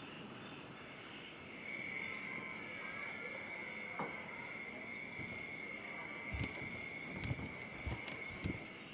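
Night insect chorus: a steady, high cricket trill that comes up about two seconds in. A few soft low thuds fall in the second half.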